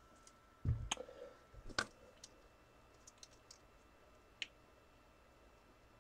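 A low thump about half a second in, then a few scattered sharp clicks: two louder ones about one and two seconds in, the rest faint.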